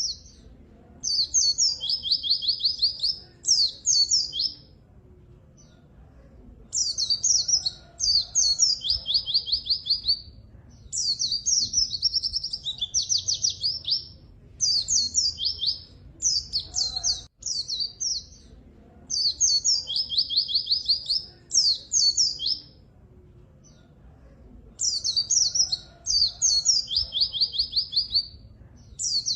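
White-eye (pleci) singing vigorously in repeated bouts of rapid, high-pitched chirps and fast trills. Each bout lasts a few seconds and is followed by a short pause, over a faint low rumble.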